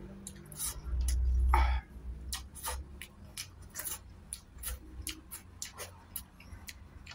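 Close-up wet chewing and lip-smacking of a person eating rice by hand, many short smacks and clicks throughout. A louder low rumble comes about a second in and lasts under a second.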